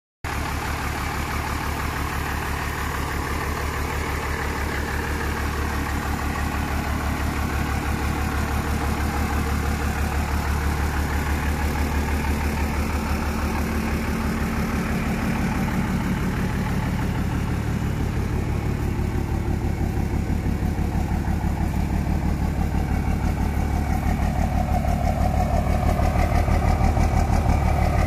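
A 1994 Dodge Ram 2500's 12-valve Cummins inline-six diesel, with compound turbos and a 4-inch exhaust, idling steadily with an even, low pulse. It gets a little louder near the end as it is heard close to the exhaust tip.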